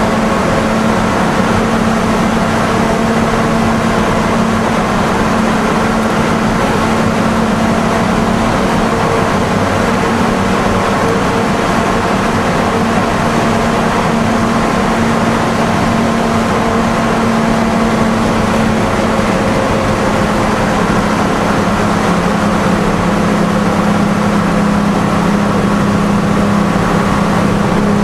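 Detroit Diesel 6-71 two-stroke inline-six in a Seagrave fire engine, running steadily under way and heard from inside the cab. Its note drops a little lower about two-thirds of the way through.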